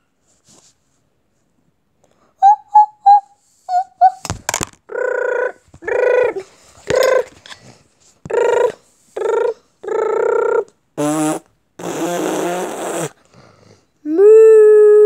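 A high, squeaky voice making a run of short wordless sounds, about one a second, ending in a long held note. A few short chirps and a sharp knock come before them.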